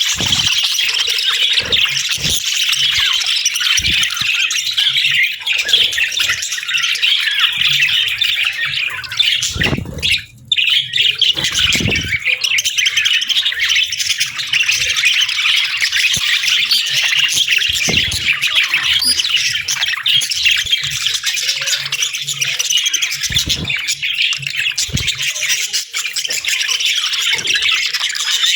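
A flock of budgerigars chirping and chattering continuously, many birds calling over each other, with a brief lull about ten seconds in.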